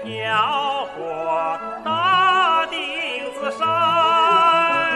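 A male voice singing a slow Chinese folk song in long held notes with vibrato, over instrumental accompaniment.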